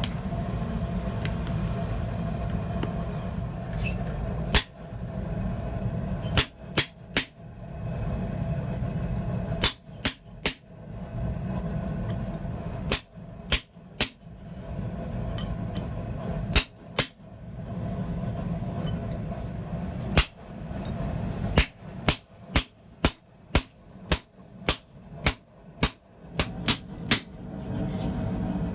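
Hand hammer striking a hammer eye chisel driven into hot steel, sharp ringing metallic blows in short groups of one to four, then a steady run of about a dozen blows, roughly two a second, near the end. A steady low roar sounds between the groups of blows.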